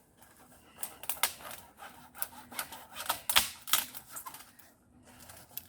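Dry dead wood cracking and snapping: a run of sharp, irregular cracks, about three a second, the loudest a little past the middle.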